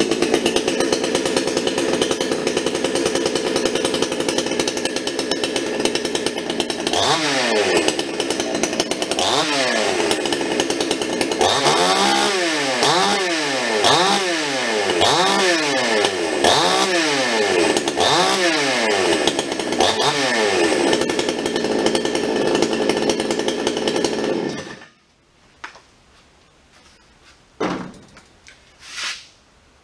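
Dereal 6220 62cc two-stroke chainsaw, freshly started, running at a steady idle, then revved repeatedly, its pitch climbing and falling about once a second. It settles back and is shut off abruptly near the end, followed by a couple of short knocks.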